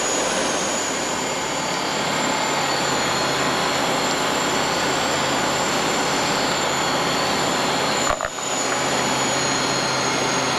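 Cabin noise of a Bristell light sport aircraft in level flight: the piston engine and propeller droning steadily under a wash of airflow noise. There is a brief click and a short dip in the noise about eight seconds in.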